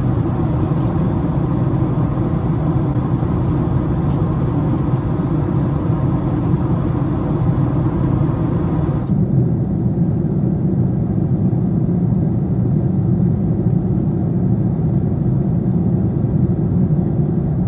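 Steady cabin roar of a Boeing 767-400ER airliner in flight, engine and airflow noise. About halfway through, the upper hiss drops away abruptly, leaving a deeper steady rumble.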